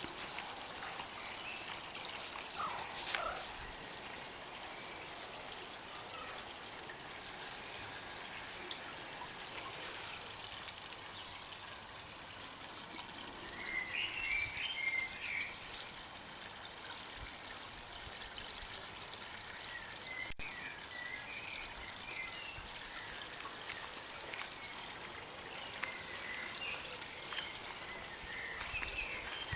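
Steady trickle of water running into a garden koi pond. Short high chirps come in twice, about halfway through and again near the end.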